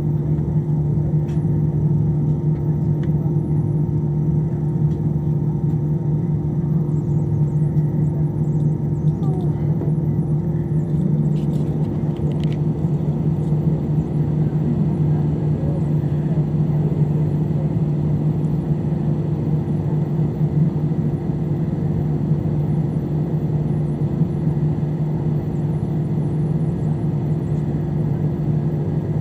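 Steady cabin noise of an Airbus A320 taxiing: a low, even hum from the engines at taxi power, with a few steady tones running through it.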